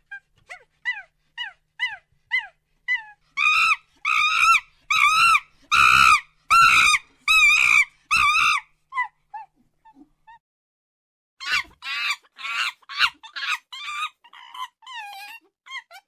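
Monkey calls: a run of short, falling yelps at about two a second builds into a loud series of longer, arched screeches. After a pause of about two seconds, a second burst of screeches and yelps follows.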